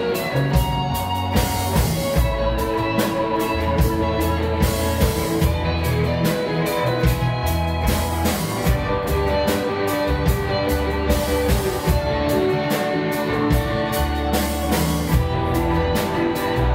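Live rock band playing: electric guitars over bass guitar and a drum kit keeping a steady beat.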